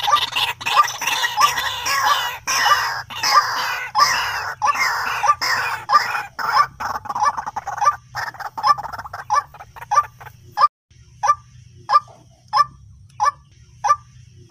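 White-breasted waterhen calling: a loud, dense tangle of overlapping harsh calls that thins out about two-thirds of the way in to single repeated notes, about one and a half a second, played as a lure call. A low steady hum runs underneath.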